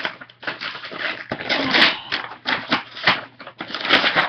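Cardboard shipping box being handled and scraped: a run of irregular scratchy rustles with a few sharp clicks.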